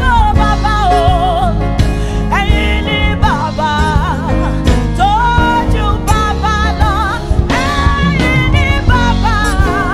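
Live gospel worship music: a woman's lead vocal, held notes wavering with vibrato, over a band of keyboard, bass and drums.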